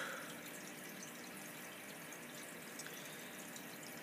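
Quiet room tone: a faint, steady hiss, with a brief soft sound right at the start.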